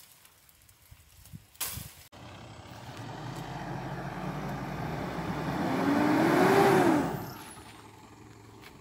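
Off-road SUV engine driving up a sandy track, starting about two seconds in and growing louder as it comes close. A short rising-then-falling whine sounds at its loudest, then it fades away.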